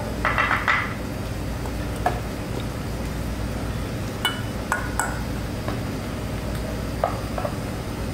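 A metal spoon scraping and clinking against a stainless steel mixing bowl as stuffing is scooped out: a scrape just after the start, then scattered light clinks, a few of them ringing briefly, over a steady low hum.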